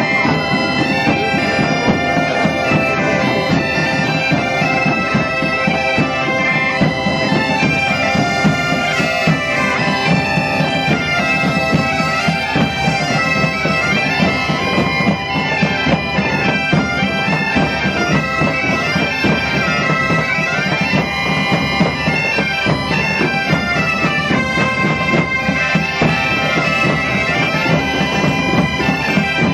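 Massed Galician bagpipes (gaitas) playing a tune in unison over their steady drones, with a drum keeping time underneath.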